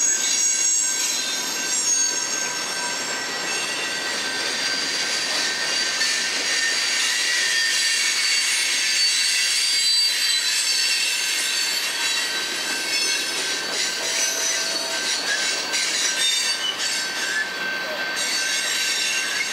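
Freight cars (boxcars and covered hoppers) of a long freight train rolling past, their steel wheels squealing with several steady high-pitched tones over the running noise of the train.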